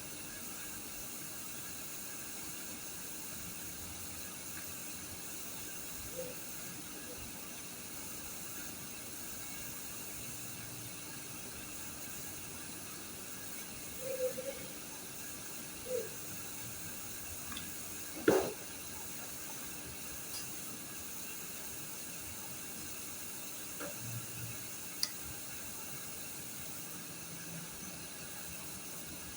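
Steady hiss with a few scattered soft knocks and clicks, the loudest a single sharp click a little past the middle.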